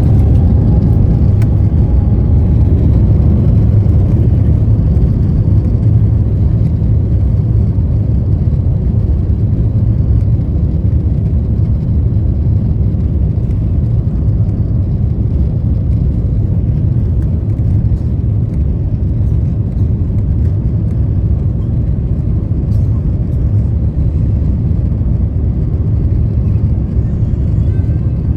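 Jet engine and airflow noise inside an Airbus A350-900's cabin: a loud, steady rumble, with a faint rising whine over the first few seconds.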